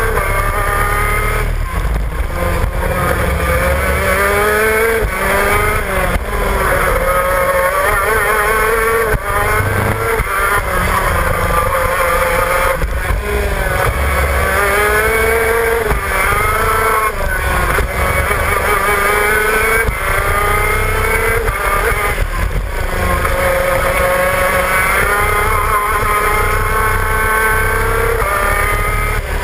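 Two-stroke shifter kart engine at racing speed, heard from on board. Its pitch climbs, drops back and climbs again over and over as it is revved out and run through the gears.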